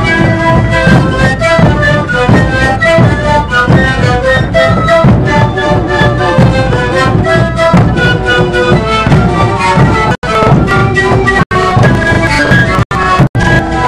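Lively traditional music with a clear melody over a steady beat. The sound drops out to silence for an instant four times in the last few seconds.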